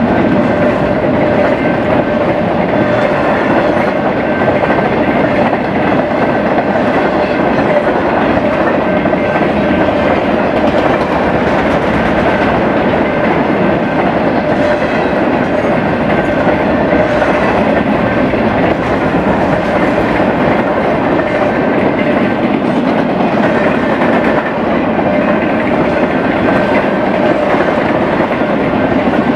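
BNSF freight train rolling past close by: a steady, loud rumble of wheels on the rails with a faint steady hum running through it.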